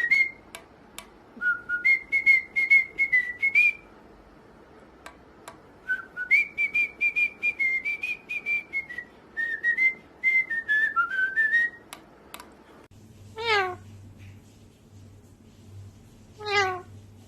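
A parrot whistling a tune of held and gently gliding notes, with sharp clicks among them, in two phrases. After a break, two short falling meow-like calls.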